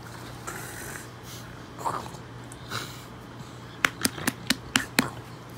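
English bulldog making a few short, rough play noises that sound like a monster, then a quick run of about seven sharp clicks about four seconds in.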